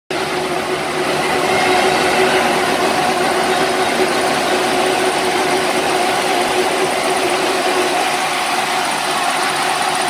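Full-automatic mini round silage baler running: a loud, steady mechanical drone with a constant hum.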